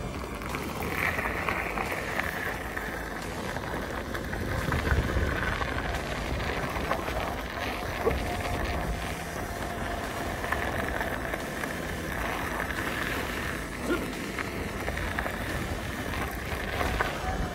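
Gotway MSX electric unicycle rolling along a gravel road: tyre noise on the loose gravel and wind buffeting the microphone, with a faint steady high whine over it.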